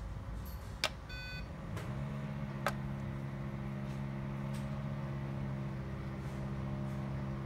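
A True Power 3 kVA uninterruptible power supply switching on: a click and a short electronic beep about a second in. A steady low hum from the unit starts about two seconds in, with another click shortly after.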